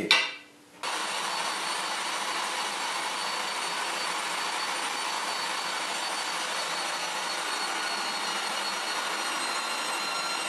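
A click, then an electric meat grinder starting up a second or so in and running with a steady motor whine. It is grinding liver and pork mince through a fine 3 mm plate on the second pass.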